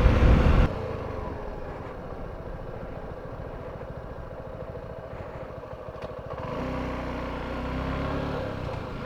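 Motorcycle engine running, a fast steady train of firing pulses. About six and a half seconds in it turns to a smoother, slightly louder hum.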